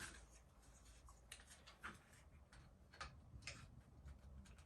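Faint, scattered plastic clicks and taps as the pieces of a Shark cordless vacuum's charging base are handled and lined up to fit together, about five light ticks over a few seconds.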